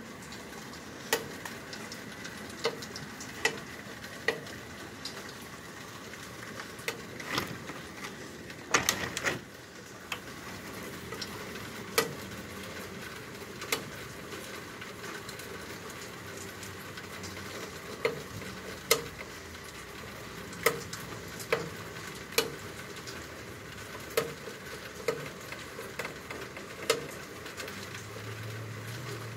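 Steady hiss of rain, with sharp drips tapping irregularly about every one to two seconds.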